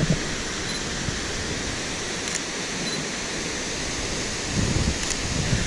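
Steady rush of a waterfall and its stream, with a few low thuds near the end.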